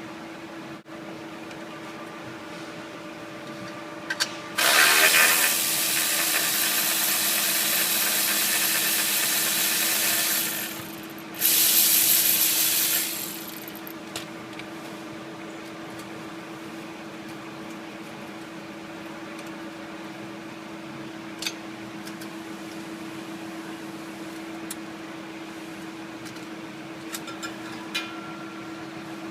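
Two loud, steady hisses, one lasting about six seconds and a shorter one of under two seconds, like compressed air or a spray, over a steady low hum. A few small clicks follow near the end.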